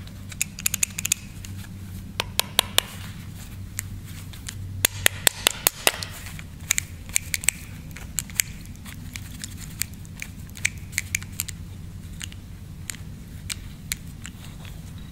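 CAV rotary diesel injection pump head and rotor being turned and worked by hand, giving sharp metallic clicks in quick irregular clusters as its plungers and rollers slide in and out. The clicks come densest in the first half and grow sparser later. A low steady hum runs underneath.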